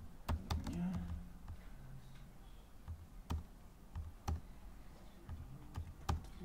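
A few sharp, irregularly spaced clicks from a computer mouse and keyboard, over a faint low hum.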